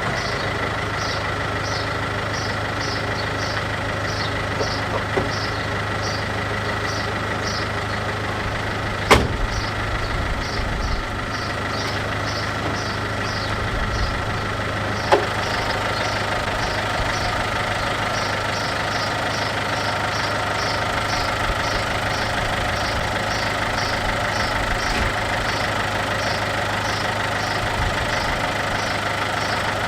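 MINI R56's 1.6 HDi DV6 four-cylinder diesel idling steadily, with a regular high-pitched tick about twice a second over the engine note. A sharp click sounds about nine seconds in and another around fifteen seconds.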